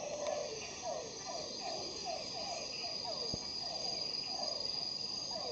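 Tropical night chorus: a steady high-pitched insect trill runs under short, repeated frog calls that fall in pitch, about two or three a second, with a single faint tick about three seconds in.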